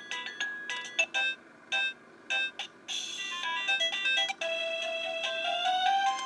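Hotec wireless doorbell receiver playing electronic chime melodies as its ring tunes are cycled through. A tune of short beeping notes gives way, about three seconds in, to a different tune with longer held notes.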